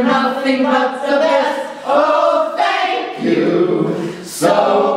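A small mixed group of amateur men and women singing together, holding long drawn-out notes, with a new sung phrase starting near the end.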